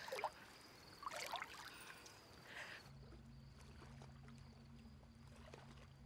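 Soft splashing of water as a swimmer moves through a pool, a few quiet splashes in the first three seconds. About three seconds in it cuts to a faint, steady low hum.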